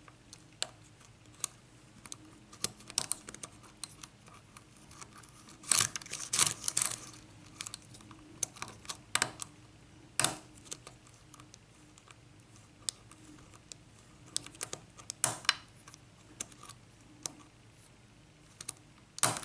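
Hook pick and tension wrench working the serrated pins of an Assa six-pin pin-tumbler lock cylinder: small, irregular metallic clicks and scrapes as the pins are lifted and set, with denser flurries about six and ten seconds in. Near the end comes a sharper click as the plug turns and the lock opens.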